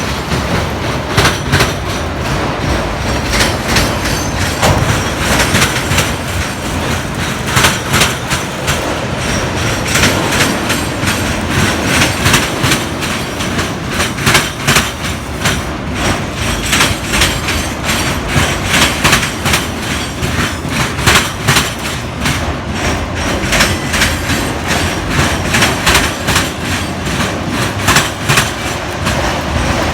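Train rolling past close by: a steady rumble with the railcar wheels clicking in quick, repeated sets over the rail joints.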